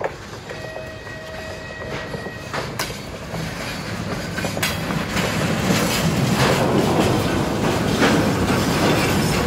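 Two freight boxcars, pushed by a TGM4A diesel-hydraulic shunting locomotive, rolling past on old jointed track. The wheels clank over the rail joints, and the rumble grows steadily louder as the wagons draw close. A held high tone sounds for under two seconds near the start.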